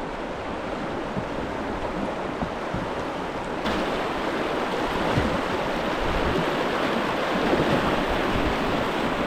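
Moving river water rushing steadily, getting a little louder about four seconds in.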